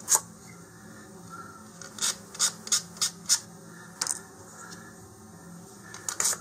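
Sandpaper rubbed in short strokes across the edge of a thin laser-cut cardboard fin, sanding off the leftover cutting nubs. There is a quick run of about five strokes, about three a second, roughly two seconds in, a single stroke around four seconds, and more strokes starting near the end.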